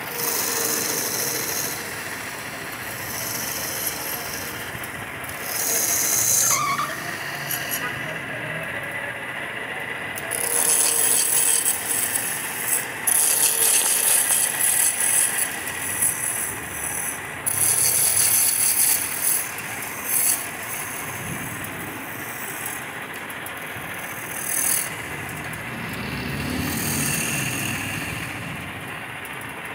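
Wood lathe running with a steady hum while a hand-held turning tool cuts into the spinning wood blank in repeated bursts of a few seconds each, every cut a loud high rasp.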